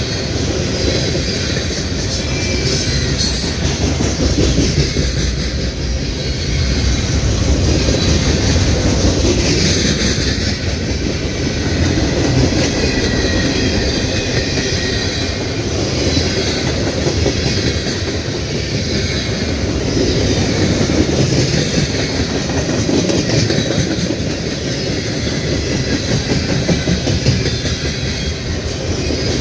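Freight train cars rolling past: a steady, loud rumble of steel wheels on rail with clickety-clack over the rail joints, swelling and easing every few seconds.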